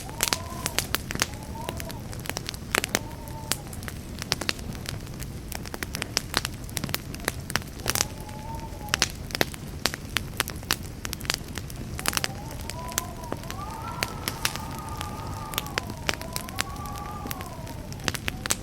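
Wood campfire burning, with dense irregular crackles and pops over a steady low rumble of flame. At times a wavering whistle rises and falls, longest in the second half.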